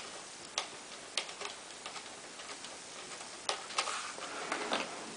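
Scattered small clicks and taps, then a denser run of clicking and scraping near the end, as a part on the back of an iMac is worked loose during a RAM upgrade.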